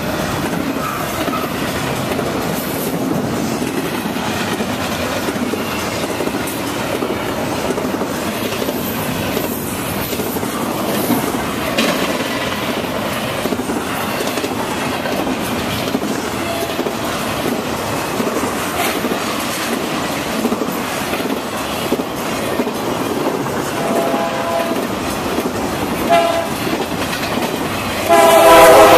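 BNSF intermodal freight train rolling past with double-stack container cars and trailer flatcars: steady wheel-on-rail noise with occasional clicks. About a second before the end, a sudden loud warning sound of several steady tones cuts in and lasts about two seconds.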